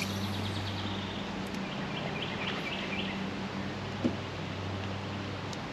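A bird calls a quick run of about five repeated high notes two to three seconds in, over a steady low hum and outdoor background noise.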